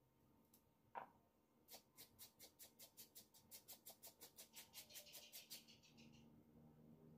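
Faint, quick scraping strokes of a small knife peeling the skin off a carrot, about five a second for some four seconds, after a single short click about a second in.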